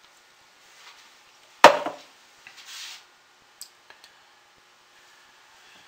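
A sharp knock about a second and a half in as a plastic pouring pitcher is set down on the stone countertop. It is followed by faint scraping and a couple of light clicks as a silicone spatula works the top of the soap batter in the wooden mold.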